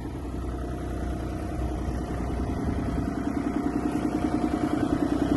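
Kubota diesel engine of a Bobcat E32 mini excavator running steadily, with a low, even pulsing note that grows gradually louder.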